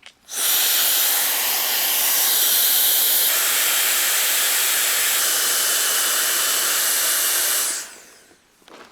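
A loud, steady hiss that starts abruptly, changes tone slightly twice and dies away about eight seconds in.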